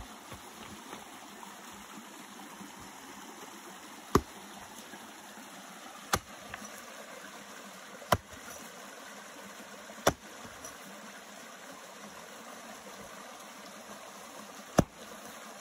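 A mattock striking into the trench soil five times, sharp blows about two seconds apart, with a longer pause before the last. A creek runs steadily underneath.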